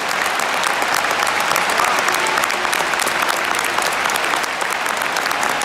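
A large stadium crowd applauding steadily, a dense clatter of many hands clapping.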